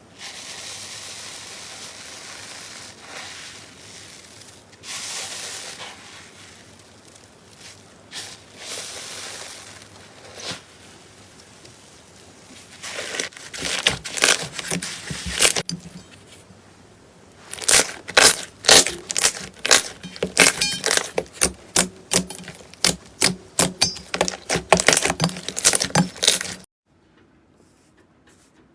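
Slime being handled and pressed: a soft hiss at first, then a long run of sharp crackling pops and clicks that stops suddenly near the end.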